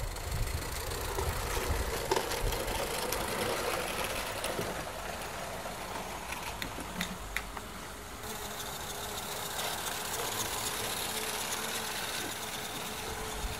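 Steady hum of a DJI Mavic Pro quadcopter's propellers, one tone that wavers slightly in pitch, over gusty wind rumble on the microphone and a few faint clicks.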